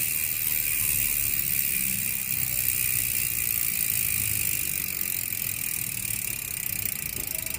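Koozer XM490 six-pawl rear bicycle hub freewheeling after hard pedalling: the pawls ratchet so fast that the clicks run together into a steady buzz.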